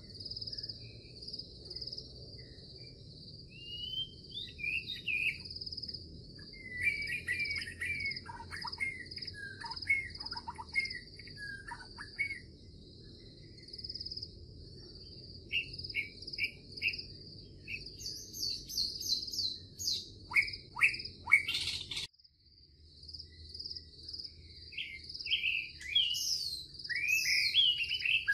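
Nature ambience of birds chirping and whistling over a steady, pulsing high insect trill, with a low rumble beneath. It cuts off abruptly about two-thirds of the way through, then fades back in.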